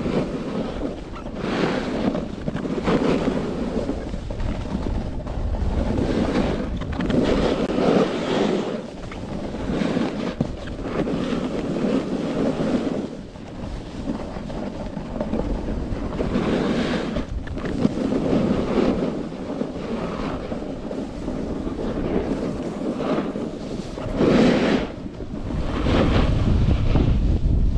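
Skis hissing and scraping over packed snow, swelling with each turn every second or two, with wind rushing over the action camera's microphone.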